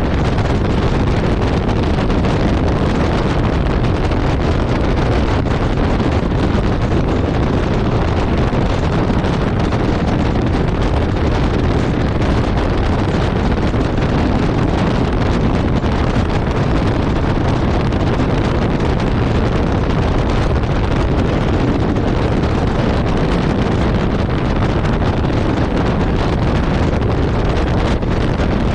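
Steady wind rush buffeting the microphone of a Yamaha Ténéré 700 motorcycle cruising at road speed, with the bike's engine and tyre noise running underneath.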